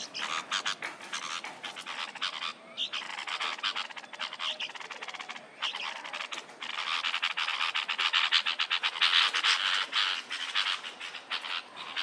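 A brood of nestlings begging for food with fast, repeated chattering calls, which grow louder and more continuous about halfway through.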